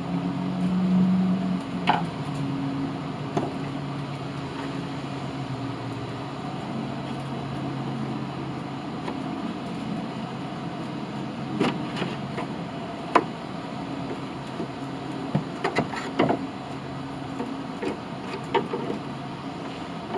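Scattered light clicks and knocks of hands working a lawn mower's shift cable and its fittings, over a steady background hum. A low drone fades away over the first six seconds or so.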